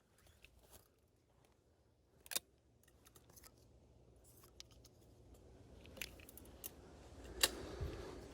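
Faint handling and movement noise: a few sharp clicks, the loudest about seven seconds in, over a soft rustle that grows louder toward the end.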